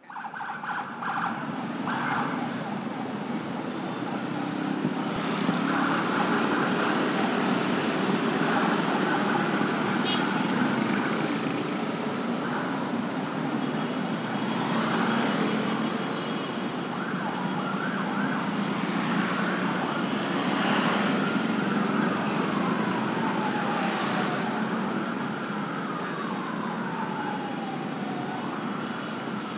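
Busy street traffic of motorbikes and cars running past, with a siren wailing in slow falling and rising sweeps through the second half.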